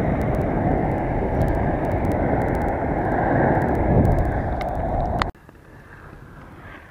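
Steady rushing of wind on the microphone and inline-skate wheels rolling on asphalt during a ride. It cuts off suddenly about five seconds in, leaving quieter open-air background.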